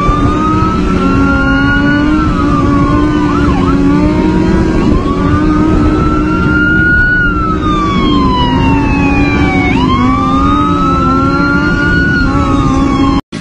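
Police siren wailing, its pitch rising and falling in slow sweeps about every five seconds, over the steady drone of a motorcycle engine. It all cuts off abruptly near the end.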